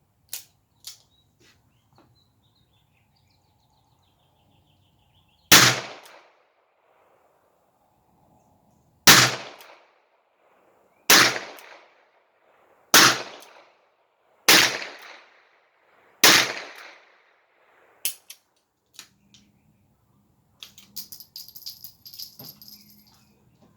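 Six shots from a Smith & Wesson Model 17-3 .22 LR revolver, the first after a pause and the rest about two seconds apart, each with a short ringing tail. A few light clicks and a brief rattle follow near the end.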